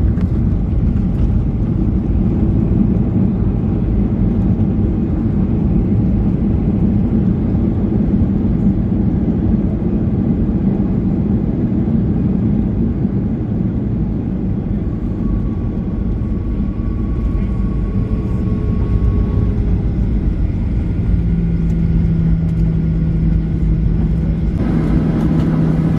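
Cabin noise of a Boeing 737-800 on approach: the steady rumble of its CFM56 engines and airflow over the airframe. A steady low hum joins about three-quarters of the way through, and a brighter hiss comes in near the end.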